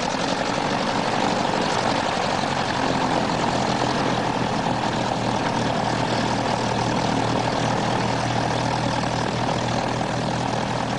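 Propeller engine running steadily, its spinning propeller giving a continuous drone with a low hum beneath.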